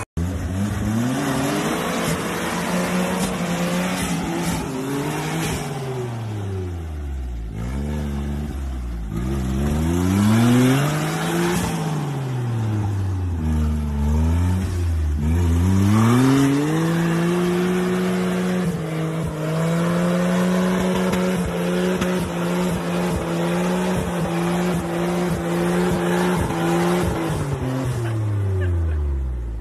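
A 4x4's engine revving hard again and again, its pitch rising and falling several times, then held high for about ten seconds before dropping near the end, as the vehicle tries to power out of a deep mud hole.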